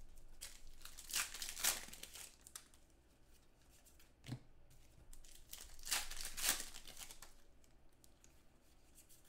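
A 2015 Contenders football card pack's wrapper being torn open and crinkled, in two bursts about a second in and around six seconds in, with a light knock in between.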